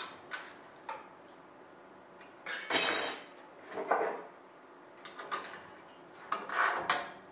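Metal clinks and clanks from a manual sheet-metal bending brake and the thin sheet being worked in it: a few short clicks, then louder metallic clatters about three seconds in and again near the end.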